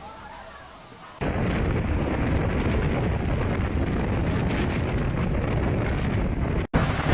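Hurricane-force wind buffeting the microphone: a loud, steady, rumbling roar that cuts in suddenly about a second in and breaks off briefly near the end.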